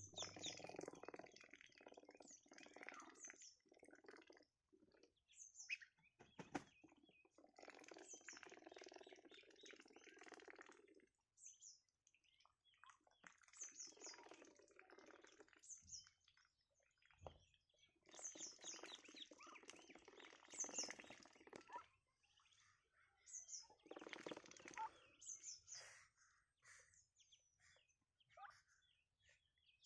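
Ducks feeding, faint, in repeated bursts of a few seconds each, with short high peeping chirps over them.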